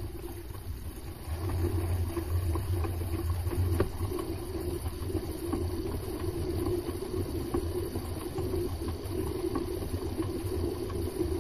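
Mini lathe motor and spindle running with a steady hum, getting louder about a second in as the chuck comes up to speed.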